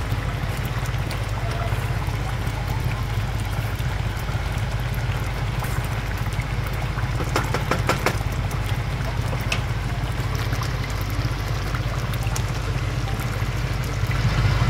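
Chicken legs simmering in sauce in a pot, bubbling and spitting steadily over a low steady hum, with a short run of crackles about seven to eight seconds in.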